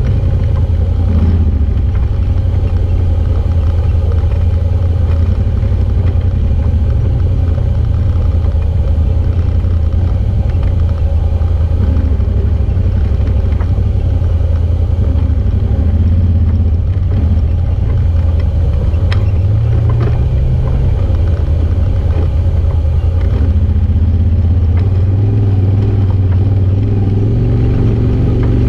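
Side-by-side UTV engine running steadily at low trail speed, with a few knocks as it crawls over rocks. The engine note lifts a little about twenty seconds in and again near the end.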